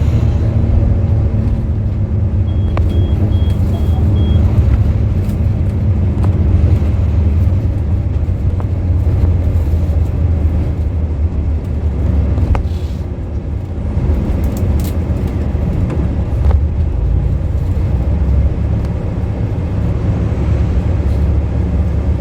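Bus running, heard from inside: a steady low engine and road rumble. A short run of about five quick high beeps comes about two to four seconds in.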